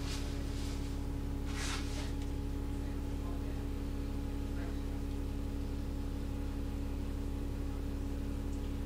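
Double-decker bus engine idling with a steady low hum, heard from the top deck while the bus stands still, with a brief hiss about one and a half seconds in.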